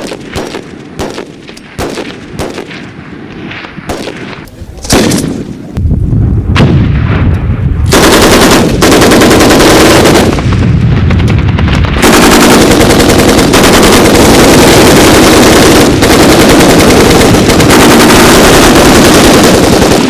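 Gunfire: scattered single shots for about five seconds, then dense, continuous machine-gun fire that becomes very loud and almost unbroken from about eight seconds in.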